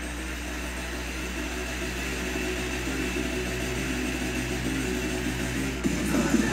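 A steady low drone with hiss that slowly grows louder, then loud heavy rock music with distorted guitar cuts in just before the end.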